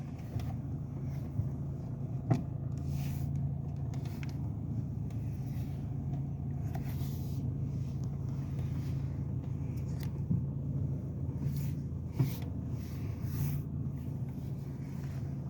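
2007 BMW M Sport car running steadily with an irregular, sharp clacking over the engine hum, a clack every second or so at uneven spacing: the clacking noise fault being recorded.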